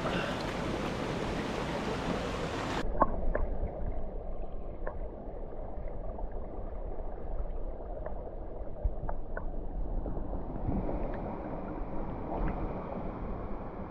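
Steady rushing of a waterfall pouring into a rock pool. A little under three seconds in, the rushing turns suddenly muffled and dull, with scattered small clicks and taps.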